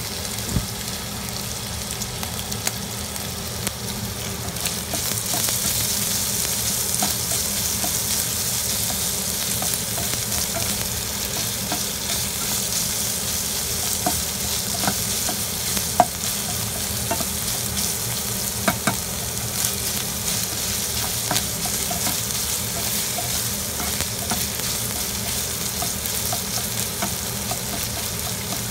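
Minced pork frying and sizzling in a hot pan as it is stirred, with a steady hiss and now and then a sharp click of the spatula against the pan.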